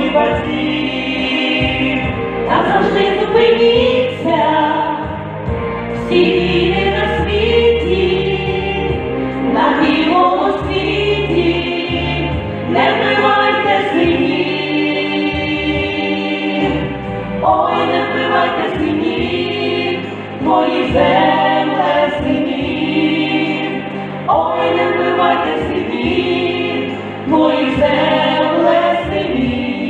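A choir singing a song in phrases a few seconds long, over a steady instrumental backing.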